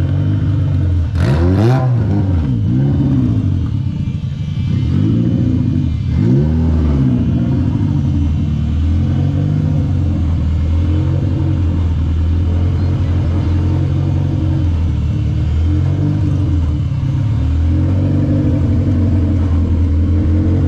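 Rebuilt Toyota 2ZZ-GE 1.8-litre four-cylinder engine revved in a few quick blips, the first and highest about a second in, then settling to a steady idle. It is running all-motor and not yet tuned.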